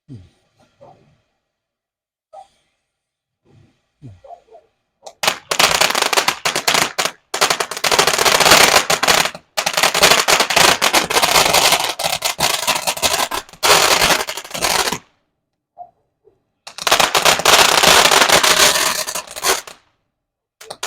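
TNT 'Short Stack' consumer firework fountain crackling, a loud, dense rattle of tiny pops that starts about five seconds in, drops out briefly, and comes back near the end.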